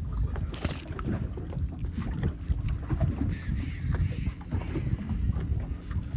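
Wind buffeting the microphone on a fishing boat at sea, with water knocking and slapping against the hull over a faint steady hum. Hissing gusts or spray come about half a second in and again from about three seconds in.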